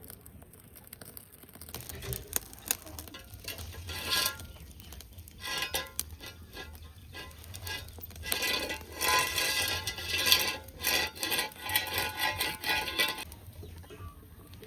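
Scattered clinks, knocks and scraping of plates and eating utensils during a meal, busiest a little past the middle.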